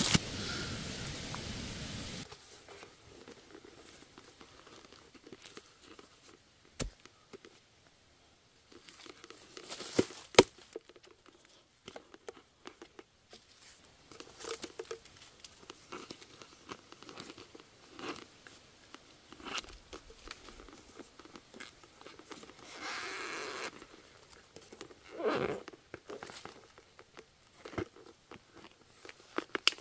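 Hands working a plastic bottle, sticks and dry leaves into a burrow entrance to set a bottle trap: scattered crinkling and scraping, with a couple of sharp knocks.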